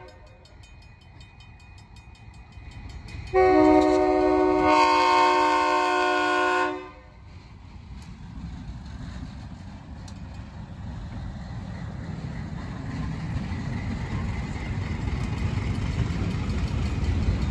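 Diesel locomotive's multi-chime air horn sounding one long blast of about three and a half seconds, followed by the low rumble of the locomotives passing, growing steadily louder toward the end.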